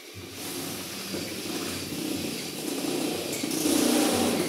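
Power drill driving a 4–12 mm step drill bit through a vehicle's sheet-metal body panel, the cutting getting louder toward the end before it stops.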